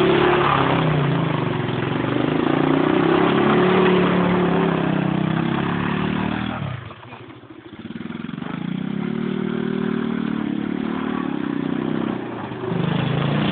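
ATV engine running and revving, its pitch rising and falling. About halfway through it drops away sharply for about a second, then picks up again.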